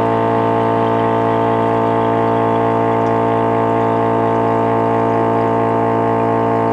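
The 12 V electric pump of a YKM M1D1 desktop liquid filling machine running at full speed, pumping liquid into a one-litre bottle: a steady, pitched hum.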